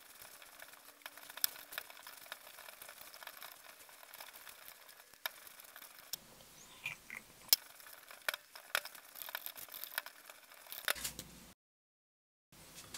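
Scattered clicks and light knocks of plastic blender jars and parts being handled, with one sharp click about halfway through. The sound cuts out for about a second near the end.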